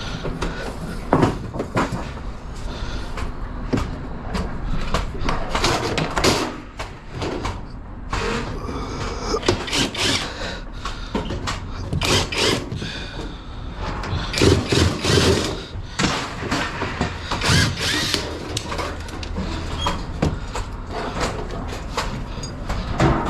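Scrap metal being worked apart by hand: irregular clanks, knocks and scraping of metal parts, with a louder cluster of knocks around the middle.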